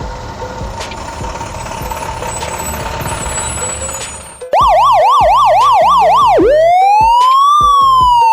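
Electronic siren of the kind on police cars, starting loudly about halfway through. It does quick yelps, about three a second, then switches to one slow rising and falling wail. Before it there is a steady background hiss with a faint held tone.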